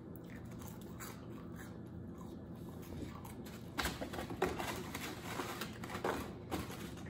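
A person chewing fast-food fries and chicken, with a few short clicks and rustles from the second half on as fries are picked out of a paper takeout box.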